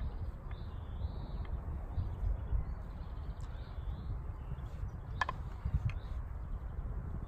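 A small songbird singing short, wavering phrases over and over, over a steady low rumble. A couple of sharp clicks about five seconds in, from a knife on a wooden cutting board.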